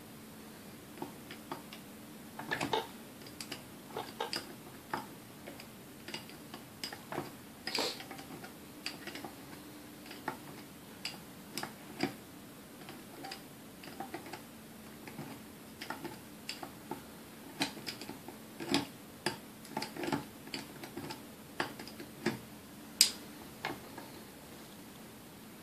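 Needle-nose pliers working inside the metal gear housing of a Sunbeam Mixmaster Model 12: scattered light metallic clicks and taps at an irregular pace over a faint steady hum, with one sharper click near the end.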